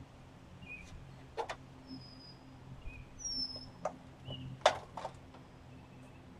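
Sharp taps and clanks at irregular intervals, the loudest a little past the middle, from hand tools working the dishwasher door's sheet metal loose. A brief high squeak comes about three seconds in, and faint bird chirps fall in between.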